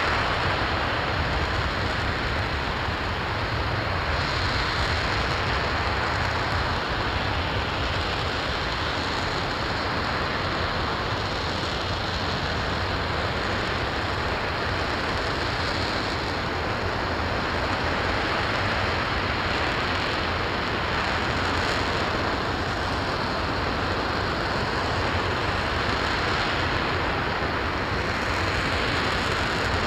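An RS-25 liquid-hydrogen and liquid-oxygen rocket engine firing steadily in a static test: a continuous, even rush of noise with a low rumble underneath, holding the same level throughout.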